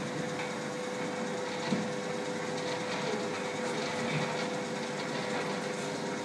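Stepper motor turning the round turntable of a prototype longan-pitting machine, a steady mechanical hum; a second, slightly lower tone joins about three seconds in, with a few faint clicks.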